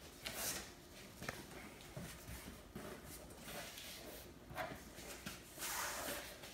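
Faint rustling and scraping of a large cardboard shipping box being handled and its flaps pulled open, with a few light knocks; the longest, loudest scrape comes near the end.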